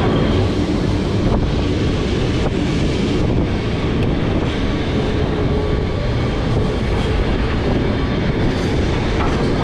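Vintage Lisbon Remodelado tram running on its rails, heard from on board: a steady loud rumble of wheels and running gear with a few sharp clicks from the track.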